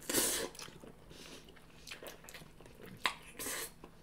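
Ramen noodles being slurped and chewed: a slurp right at the start and another about three and a half seconds in, just after a sharp click, with soft wet chewing in between.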